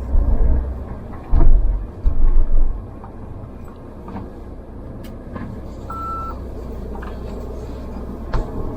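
Mahindra Thar running at low speed while being turned around, a steady low engine rumble with several heavy low thumps in the first three seconds. A single short high beep sounds about six seconds in.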